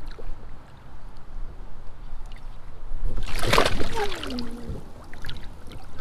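A loud rush and splash of creek water right at the microphone about three seconds in, as the camera nearly dips into the creek. A short exclamation falling in pitch follows.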